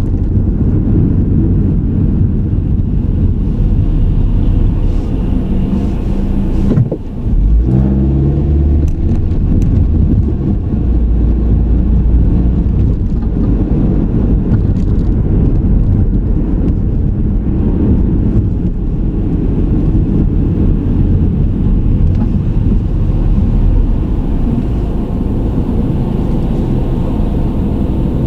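Car engine and road noise heard from inside a moving car: a steady low rumble. About seven seconds in the level dips briefly, then the engine note rises for a moment.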